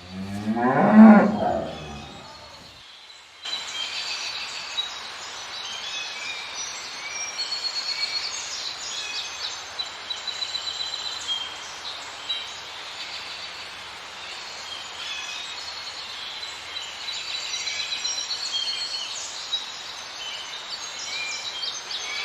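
A cow moos once at the start, a loud pitched call of about two and a half seconds. It is followed by steady outdoor background noise with small birds chirping and twittering throughout.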